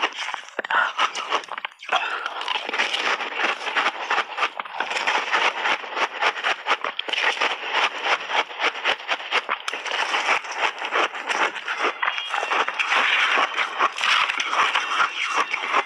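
Close-up crunching and chewing of a frozen ice roll dipped in passionfruit pulp: a dense run of crackling crunches as the ice breaks between the teeth, with brief pauses near the start.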